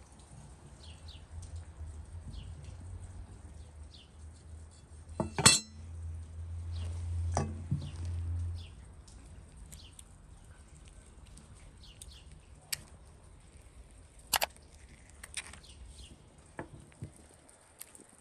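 Metal knife and spoon knocking and clinking against a wooden chopping board while an avocado is halved and its flesh scooped out, with a handful of sharp knocks, the loudest about five seconds in. Faint short chirps sound throughout.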